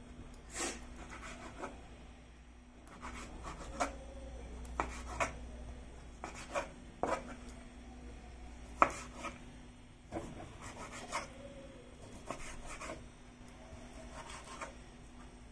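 A large kitchen knife cutting smoked pork on a cutting board: irregular knocks of the blade striking the board, with quieter cutting and scraping between them. The sharpest knock comes about nine seconds in.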